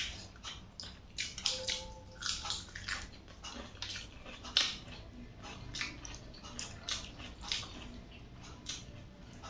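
Close-up eating sounds: wet chewing and lip smacks, irregular and sharp, as chicken curry and rice are eaten by hand. The loudest smack comes about four and a half seconds in.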